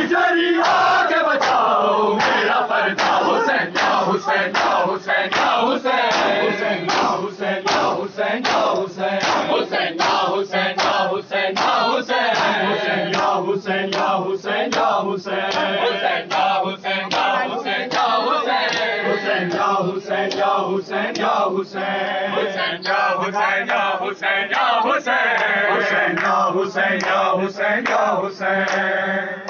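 Crowd of men chanting a noha together in unison, with rhythmic matam, hands slapping chests, keeping time at about two strikes a second.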